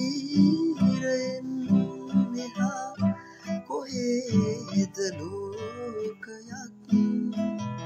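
A man singing a Sinhala song while strumming an acoustic guitar, the chords falling about twice a second under his voice.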